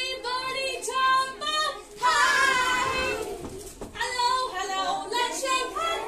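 A group of young children singing an action song together, the voices rising and falling syllable by syllable, louder for a stretch about two seconds in.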